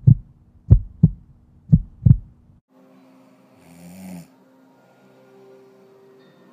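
A heartbeat sound effect of three double thumps, lub-dub, in quick succession, then a person snoring once about four seconds in, over a faint steady background with held tones.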